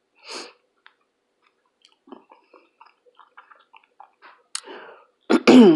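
A person chewing food with the mouth close to the microphone: a soft breath, then a run of small wet clicks and squishes. A voice starts loudly near the end.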